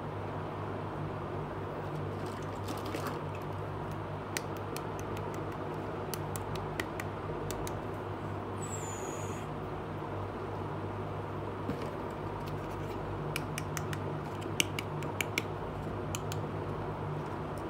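Small hard-plastic toy pieces clicking and tapping as they are handled and set down, in scattered clusters with the sharpest clicks near the end, over a steady low hum.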